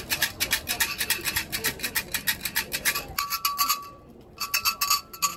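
Fortune sticks rattling inside a hexagonal metal omikuji canister shaken quickly by hand, a fast run of rattles about six a second. The shaking pauses briefly about four seconds in, with a short metallic ring just before the pause and again near the end.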